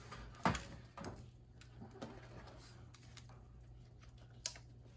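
A few sharp plastic clicks and handling sounds, the loudest about half a second in and another near the end, as the dustbin of a eufy BoostIQ RoboVac 30 robot vacuum is unlatched and pulled out to be emptied. A faint steady hum runs underneath.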